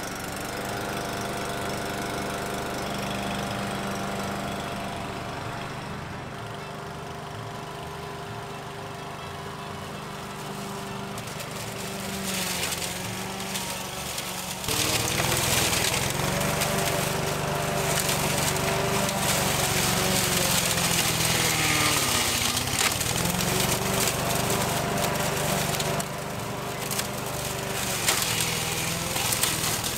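Masport petrol rotary lawn mower running steadily. From about halfway it is pushed over a pile of hedge clippings and gets much louder as the blade shreds the branches. About three-quarters through, the engine's pitch sags briefly under the load, then recovers.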